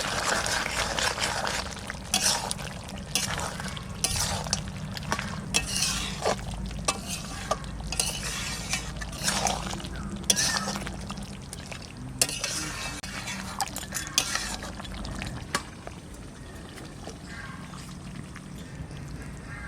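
A spoon or spatula stirring a pot of duck curry, scraping and clinking irregularly against the pot as the garam masala is mixed in. The stirring stops about three-quarters of the way through, leaving a quieter steady background.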